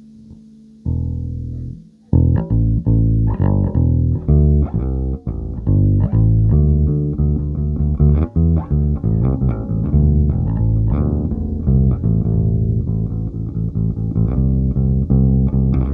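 Bass guitar played solo. A single note rings from about a second in and stops near two seconds, then a steady run of plucked notes follows.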